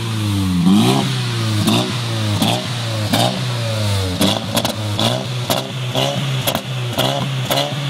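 Vauxhall Signum 2.0T's turbocharged four-cylinder petrol engine, heard at the tailpipe of a home-made straight-through back box, blipped again and again from idle, each blip rising and falling in pitch, with a short sharp crack at the top of the blips. The blips come about once a second at first and quicker in the second half.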